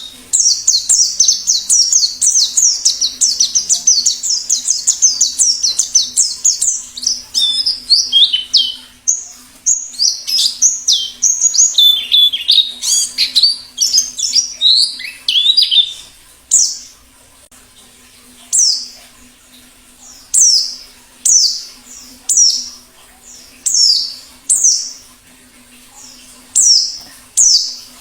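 White-eye (pleci) song: a fast, high, continuous twittering warble for about the first half, then separate short high notes, each sweeping downward, about once a second.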